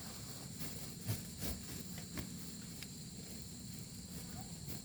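Steady high-pitched chirring of insects, with a few light knocks and rustles scattered through it.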